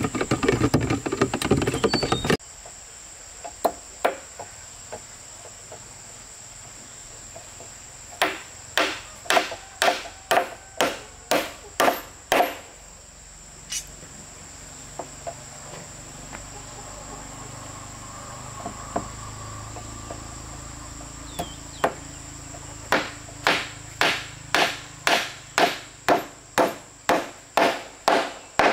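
Runs of steady blows on wood, about two a second: one run of around nine blows, then later a longer run of about a dozen, with a few single knocks between. An insect's steady high-pitched trill goes on underneath, and a loud rough noise cuts off sharply about two seconds in.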